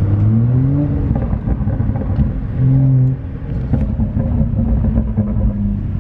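BMW 335i's N55 turbocharged inline-six, heard from inside the cabin, pulling under throttle on a freshly flashed Bootmod3 stage 2 tune. It rises in pitch in the first second, runs loud and steady, drops off sharply a little after three seconds in, then runs on steadily. It sounds definitely much louder.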